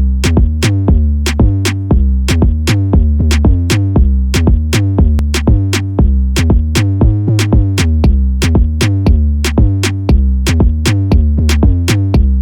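Electronic backing music: a drum-machine beat with a heavy, pulsing synth bass.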